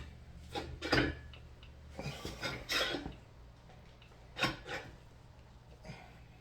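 Irregular metal clunks and scraping as an LS 5.3 V8 engine block is turned over on its engine stand, a handful of knocks with the loudest about four and a half seconds in.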